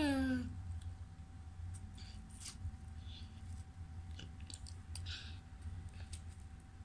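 A toddler eating watermelon from a plastic spoon: soft wet chewing and mouth sounds, with scattered faint clicks of the spoon scooping the melon flesh. A short voice sound falling in pitch comes right at the start.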